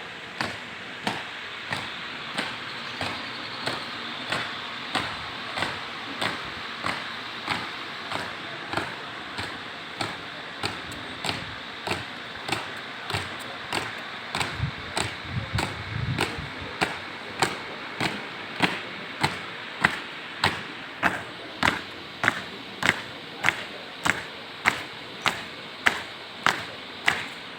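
A flag-raising troop stamping in step as they march, their boots hitting the ground in unison about twice a second. The stamps grow louder about halfway through.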